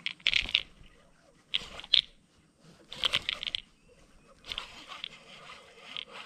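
Baitcasting reel clicking in five short, crackly bursts as a lure is worked and a fish is hooked and reeled in.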